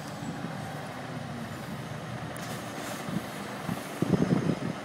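Mercedes-Benz Actros truck engine running as the lorry drives out past a gate, with louder uneven rumbling near the end.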